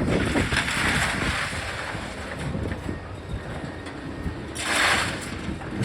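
Heavy demolition machinery working on a building: a constant low rumble with scattered clattering, and two louder swells of rushing noise, one about a second in and one near the end.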